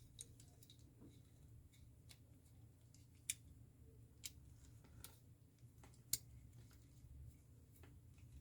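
Faint, sparse clicks of small metal lock parts being handled: the wafers and body of a hood-lock key cylinder being fitted and checked, about half a dozen sharp ticks a second or so apart over a low background hum.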